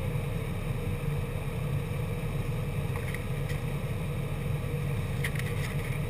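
Car engine idling steadily while the car stands still, heard from inside the cabin, with a few faint clicks around the middle and near the end.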